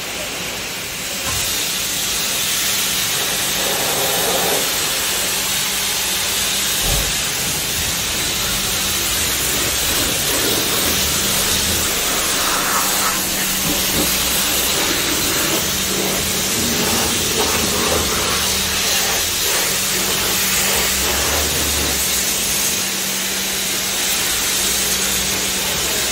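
Pressure washer spraying water onto a car: a loud, steady hiss with a steady motor hum underneath.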